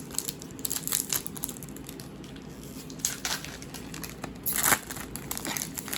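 Foil wrapper of a Pokémon Scarlet & Violet Paradox Rift booster pack crinkling and being torn open, with a louder, longer rip about three-quarters of the way through.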